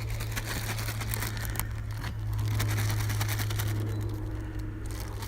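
Crinkling and rustling of a cat-treat bag being handled, as a run of short irregular crackles over a steady low hum.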